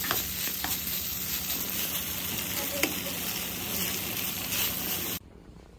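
Fried rice sizzling in a hot frying pan while a wooden spatula stirs and scrapes through it, with occasional short clicks of the spatula on the pan. The sizzling cuts off suddenly about five seconds in.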